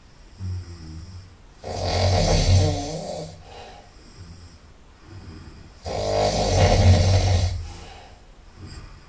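A person snoring very loudly through the nose: two long snores about four seconds apart, each lasting about a second and a half, with much quieter breaths between them.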